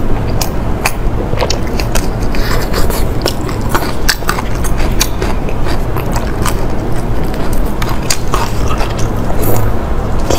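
Close-miked eating: biting and chewing with many short, sharp mouth clicks and smacks, over a steady low hum.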